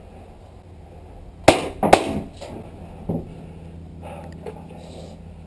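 Sharp cracks of paintball fire close by in a wooden bunker: a quick group of three about a second and a half in, the first and last the loudest, then one softer crack about a second later.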